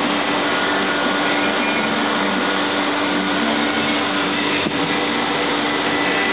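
A steady whirring noise with a low hum, unchanging throughout, with one faint click about two-thirds of the way in.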